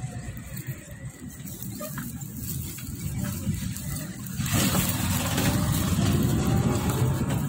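Auto-rickshaw engine and road rumble heard from inside the open passenger cabin while riding. About halfway through, a louder rushing noise joins the rumble.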